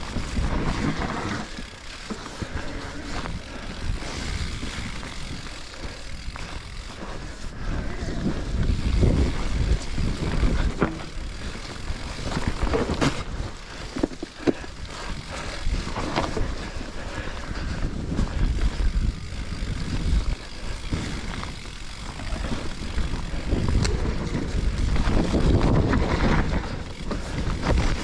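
Specialized Levo electric mountain bike ridden over a rough trail: wind buffeting the microphone, tyres on dirt and the bike rattling, with a few sharp knocks around the middle.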